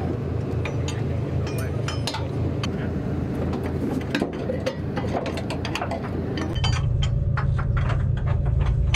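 Hand tools clinking and knocking on metal engine parts of a military vehicle, many short irregular clinks over a steady low engine drone. The drone grows heavier about six and a half seconds in.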